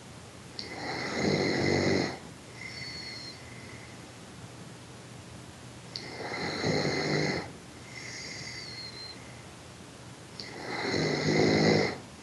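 A sleeping person snoring: three loud, rasping snores about five seconds apart. Each is followed by a quieter breath with a thin whistle that falls in pitch at its end.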